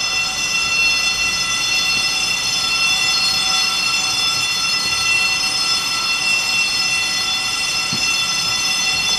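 Steady high-pitched whine with several overtones over a constant hiss, the running noise of a subway train heard from inside a car.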